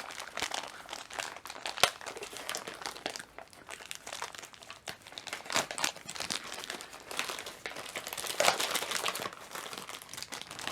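Plastic toy packaging crinkling and crackling as it is handled and opened by hand: irregular crackles throughout, louder about two seconds in and again near the end.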